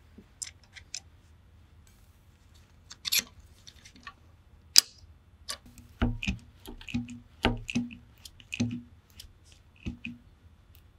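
Metal clicks, clacks and knocks from a hydraulic brake-line flaring tool being handled as a steel brake-line tube is clamped in its die block and the tool is set up and its lever worked. A few light clicks and a sharp tick come first, then a quicker series of louder knocks about halfway through.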